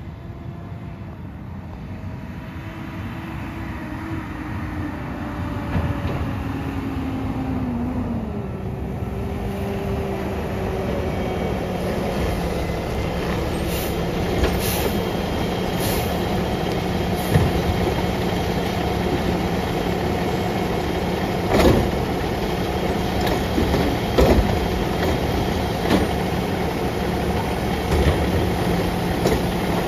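Peterbilt side-loader garbage truck with a Labrie Automizer arm pulling up and stopping, its engine tone gliding down as it slows. It then sits running with a steady hum, with several sharp metal clanks from the truck's arm and body.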